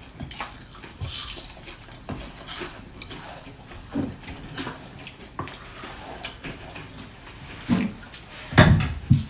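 Eating sounds at a dinner table: chewing of crispy battered fried squash blossoms and chopsticks tapping on bowls and plates, in scattered small clicks. A few louder sounds come near the end.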